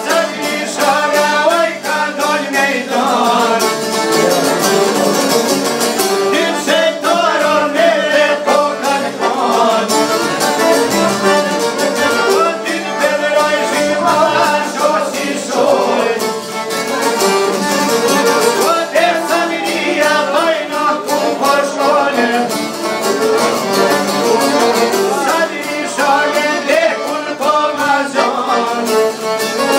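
Live Albanian Shkodran folk music: a male voice singing over violin, accordion and long-necked plucked lutes played together.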